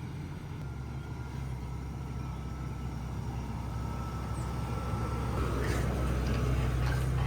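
Converted shuttle bus driving: its engine and road noise make a steady low drone that grows gradually louder as it picks up speed, with a faint whine rising slightly in pitch.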